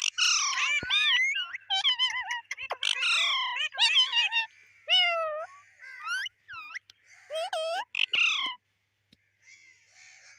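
Pet parrot calling in a quick run of high, gliding squawks and whistles, falling nearly quiet over the last two seconds.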